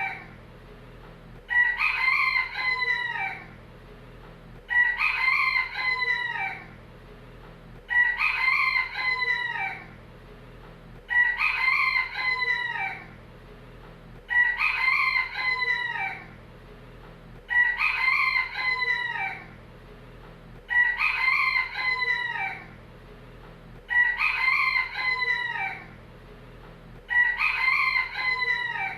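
Rooster crowing, one identical cock-a-doodle-doo about every three seconds, nine times over, as a looped recording. A faint steady hum lies between the crows.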